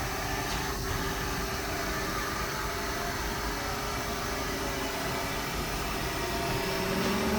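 Haas ST40L CNC lathe running under power: a steady machine hum and hiss with a constant tone through it.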